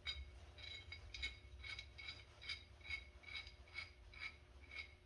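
Light metal-on-metal clinks, evenly spaced about two a second, each with a short ring, from a steel pipe wrench and its extension pipe working on a water pipe.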